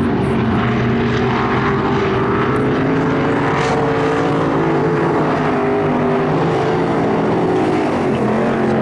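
Racing engines running on the track, a steady, loud drone whose pitch wavers slowly up and down.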